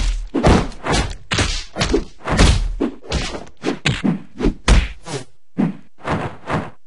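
Rapid string of punch and kick hit sound effects in a stick-figure fight: sudden thuds and whacks, about three a second, landing one after another in an unbroken combo, then stopping shortly before the end.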